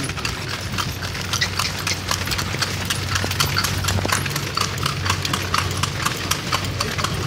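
Horse hooves clip-clopping steadily on a paved road as a kalesa, a horse-drawn carriage, rolls along, with a steady low rumble underneath.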